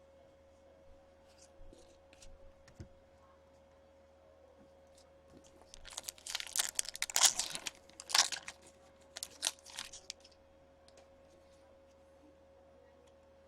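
Crackling and tearing of a foil trading-card pack wrapper being ripped open and crumpled, in a dense spell of several seconds near the middle, after a few faint handling clicks.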